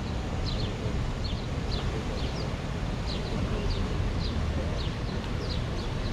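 A small bird calling with short, high, downward-sliding chirps, about two a second, over a steady low rumble of wind on the microphone.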